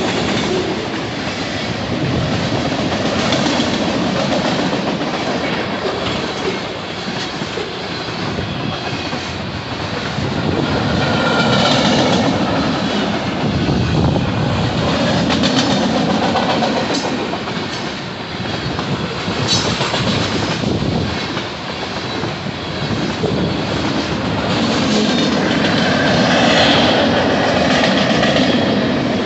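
Freight train cars rolling steadily past, wheels clacking over the rail joints, with some wheel squeal.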